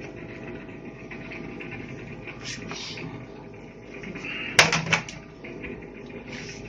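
Steady hum of running aquarium equipment with a rising stream of air bubbles. About four and a half seconds in, a brief clatter of several sharp clicks, the loudest sound, from handling the acclimation tubing at the tank.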